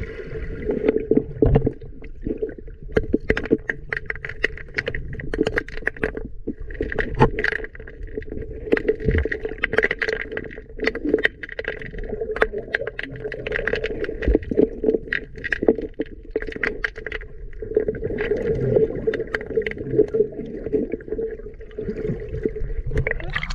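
Underwater sound from a submerged camera in a river: a steady muffled hum and water noise with many sharp, irregular clicks and knocks.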